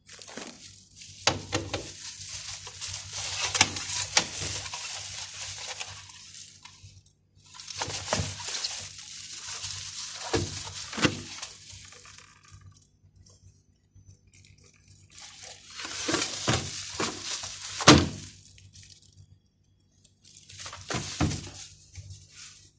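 Handling of food packages and containers, in four spells of plastic rustling and crinkling with sharp knocks and clinks as items are set down; the loudest knock comes a little past the three-quarter mark.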